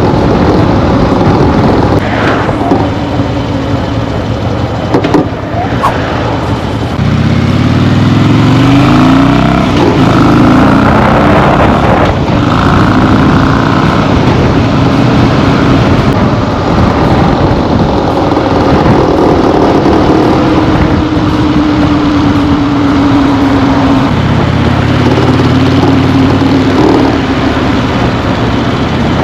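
2008 Harley-Davidson Fat Bob's air-cooled Twin Cam V-twin running, its revs rising and falling several times. The bike has the heavy vibration and rattling that the owner suspects come from worn motor mounts.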